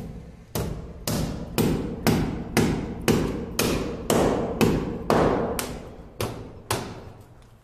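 Hammer blows fixing PVC electrical conduit pipe to a plastered wall: a steady series of about fourteen sharp strikes, two a second, each with a short ring.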